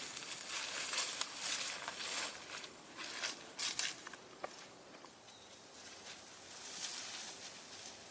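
Irregular rustling and crunching, like movement through dry leaves and twigs, busy in the first half and thinning out later.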